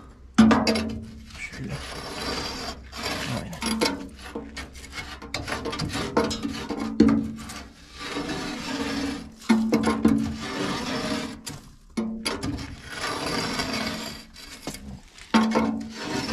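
Metal cleaning scraper rasping against the inside surfaces of a Mimsan solid-fuel central heating boiler in repeated strokes, each a second or two long. It is scraping off the ash and soot deposits left by burning wood and coal.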